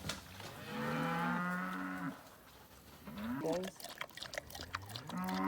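Penned cattle mooing: one long, low moo about a second in, a short call a little past the middle, and another long moo starting near the end.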